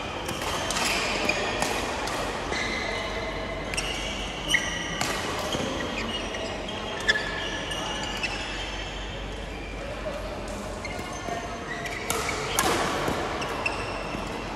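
Badminton rally: rackets striking the shuttlecock in a string of sharp cracks, the loudest about four and a half and seven seconds in, with shoes squeaking on the court floor. Voices chatter in the background.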